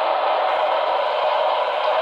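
Model steam locomotive and tender running past on the track, a steady hiss.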